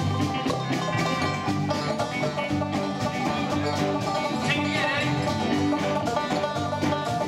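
Live band playing an up-tempo tune with banjo picking over electric guitars, bass guitar and drums, with a steady beat.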